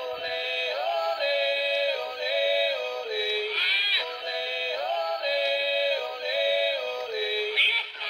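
PBC International singing pirate bear plush toy performing its song: a synthetic-sounding voice sings a stepping melody over backing music, with the phrase repeating about every three and a half seconds.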